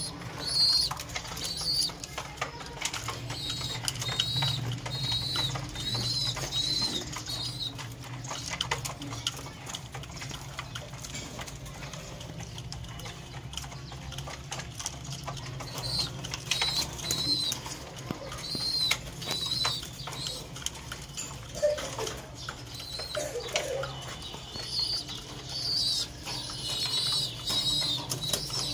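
Caged French Mondain pigeons cooing low, with wing flaps and knocks, while runs of quick, high chirping notes come and go several times.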